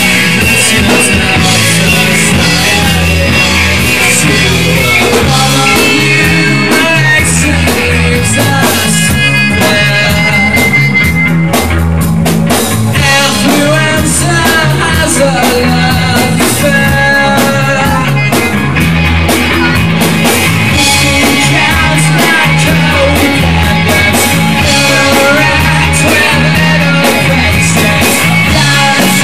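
Live band playing loud rock music over a steady, repeating bass line.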